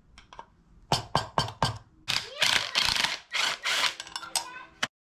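Several sharp metal taps of a hammer on a screwdriver, bending out the tabs on the rear sprocket bolts. Then, from about two seconds in, a cordless impact driver rattles hard as it breaks the bolts loose, followed by a steady motor whine with a few clicks that stops suddenly.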